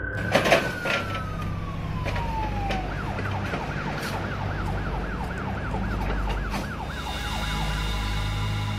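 Emergency vehicle siren: a long wail falling in pitch in the first few seconds, then a fast yelp rising and falling about three or four times a second, stopping about seven seconds in, over a steady low vehicle rumble. A sharp knock near the start is the loudest sound.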